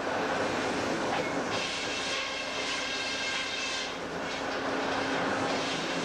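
Big Jack sawmill running steadily, with a constant hum; a high-pitched whine joins in about a second and a half in and fades out around four seconds.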